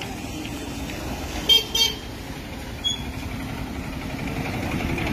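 Road traffic with engines running, and two short vehicle horn toots in quick succession about a second and a half in, followed by a brief high beep just before three seconds. The traffic noise grows louder toward the end.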